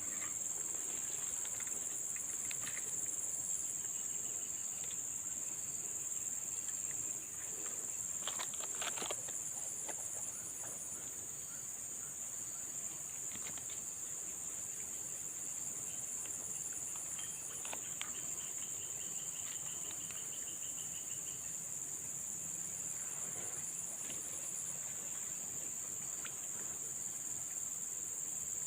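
Outdoor insect chorus: a steady high-pitched drone that does not let up, with a few faint clicks about eight seconds in and a short, faint pulsing trill around twenty seconds.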